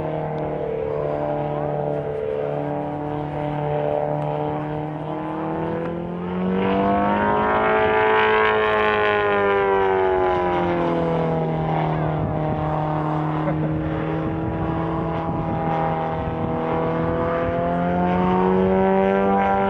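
Piston engine and propeller of an aerobatic biplane in flight, with a strong steady drone. The pitch swells up and falls back about midway as the plane goes through a manoeuvre, and rises a little again near the end.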